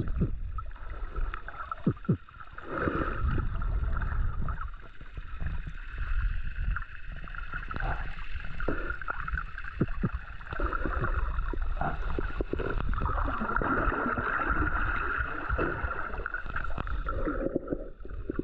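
Muffled underwater sound picked up by a camera held below the surface while snorkelling: water rushing and gurgling, with scattered short pops, over a steady hum.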